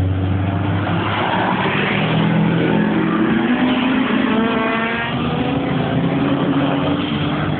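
Cars accelerating past, engines revving, with one engine's note climbing steeply about four seconds in.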